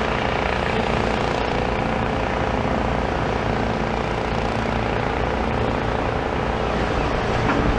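Steady engine drone with a low rumble, holding at an even level throughout.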